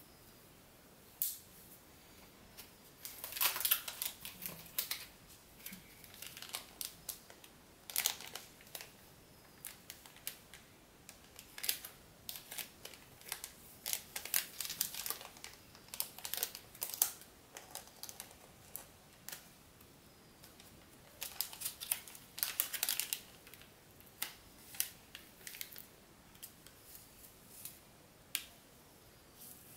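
Crinkling of a silvery anti-static bag and scattered clicks as a laptop hard drive is handled in it. The sound comes in irregular bursts of a second or two, loudest near the start and about three-quarters of the way through.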